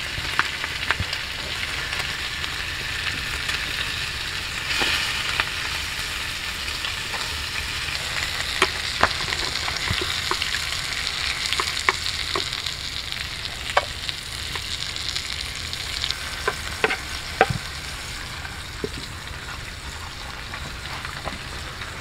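Food sizzling in a small frying pan over a campfire, a steady hiss with scattered sharp crackles and pops from the burning wood.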